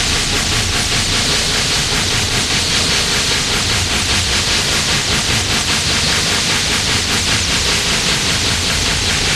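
Harsh noise music from a noise cassette: a dense, unbroken wall of hiss and static, shot through with a fast fluttering crackle.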